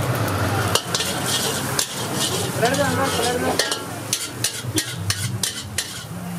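Metal ladle scraping and clanking against a wok while veg fried rice is stirred and tossed over a gas flame, the rice sizzling as it fries. The strikes come fast and irregular over a steady sizzle.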